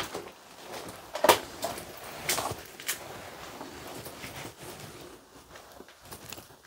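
Footsteps with a few sharp knocks, the loudest about a second in.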